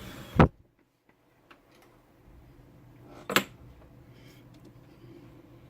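Two sharp knocks about three seconds apart, with light clicking from handling between them.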